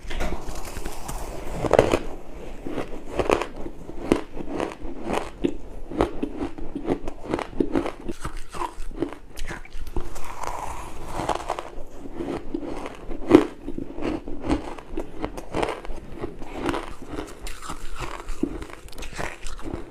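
Crushed and shaved ice being bitten and chewed in a rapid, uneven run of crunches, several a second, with louder crunches near 2 seconds and about 13 seconds in.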